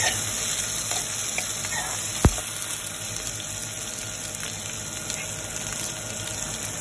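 Chopped red onions, green chillies and garlic sizzling in hot oil in a steel kadai as they are stirred with a metal spoon. A single sharp clink of the spoon against the pan a little over two seconds in.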